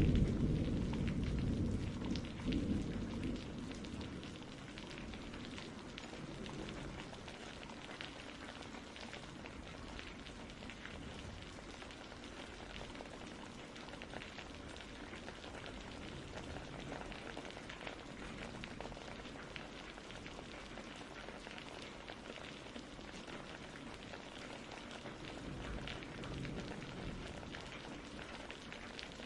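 Steady rain falling, with many small drop ticks, and a low rumble of thunder dying away over the first few seconds.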